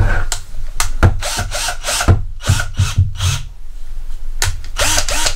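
SnapFresh 20V cordless drill's brushed motor run in short trigger bursts, spinning up and winding down again and again, with sharp clicks between the bursts.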